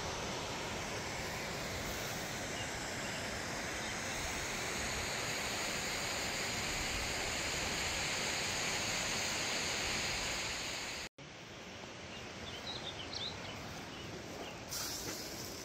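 Steady outdoor rushing noise that cuts off abruptly about two-thirds of the way through, followed by quieter outdoor ambience with scattered small bird chirps.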